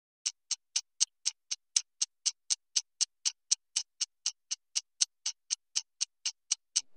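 Clock ticking sound effect: crisp, even ticks at about four a second.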